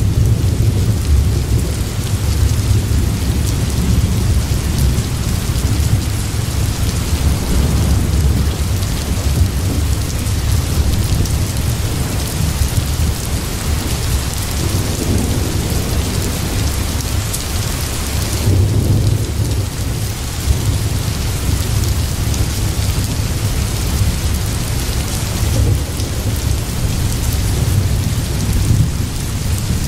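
Steady rain with a low rumble of thunder.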